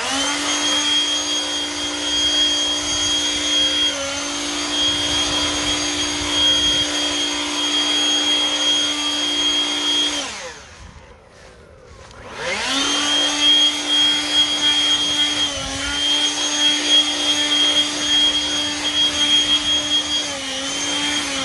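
Hart 40V brushless turbo fan blower running flat out in turbo mode: a steady whine over rushing air. About ten seconds in it winds down almost to a stop, then spins back up a couple of seconds later and runs on.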